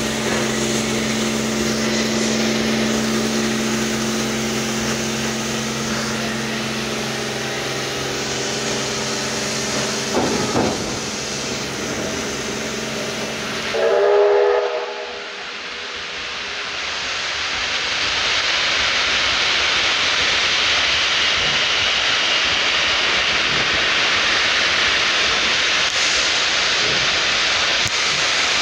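Steam locomotive 3801, a NSW C38-class Pacific, standing with steam up: a steady hum with held tones over hiss. About halfway through there is a brief pitched blast, then a steady rushing hiss.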